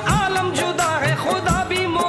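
Naat music: a wavering, ornamented melody over a steady light beat.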